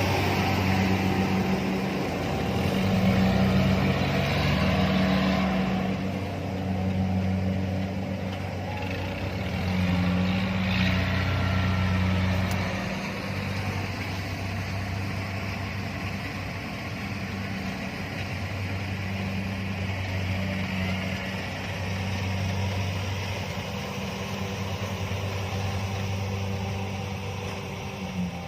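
Kubota DC-70 combine harvester running steadily while harvesting rice, its diesel engine holding an even hum.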